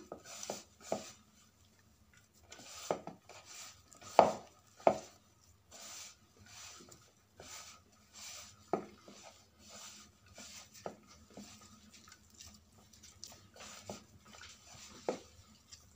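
A hand kneading a mashed potato and arrowroot filling in a ceramic bowl: irregular soft squishes and light knocks against the bowl, with two louder knocks around four and five seconds in.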